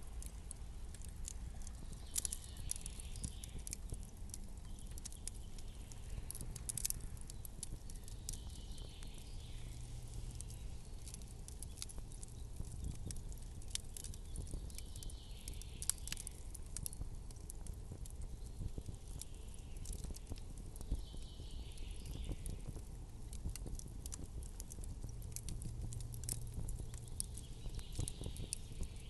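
Campfire crackling with many small sharp pops, over a steady low rumble. A soft, higher swell of sound comes back about every six seconds.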